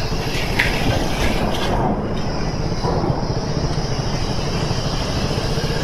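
Motorcycle engine running steadily under way, with tyre and road noise.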